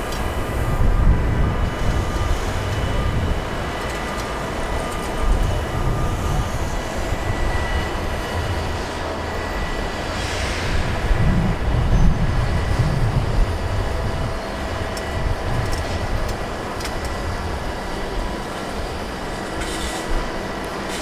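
Mobile crane's diesel engine and hydraulics running steadily during a heavy lift: a continuous machinery drone with faint steady high whines over an uneven low rumble.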